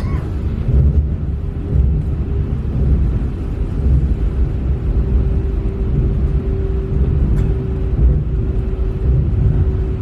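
Small mountain river flowing: a steady low rushing of water, with one faint held musical note underneath through most of it.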